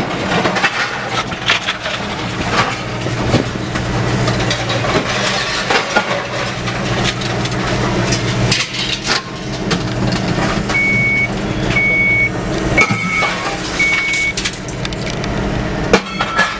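Vehicle engine idling with irregular knocks and clatters throughout; about eleven seconds in, a backup alarm sounds four short high beeps about a second apart.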